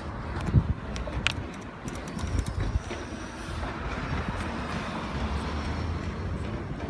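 Garbage truck's automated side-loader arm lifting a recycling cart and tipping it into the hopper, with a few knocks in the first second or so. The diesel engine runs steadily under the hydraulic load after that.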